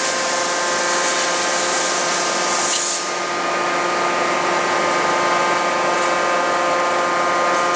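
Steady hum of forge-shop machinery, with several held tones under a hiss; the hiss drops away about three seconds in. No hammer blows land.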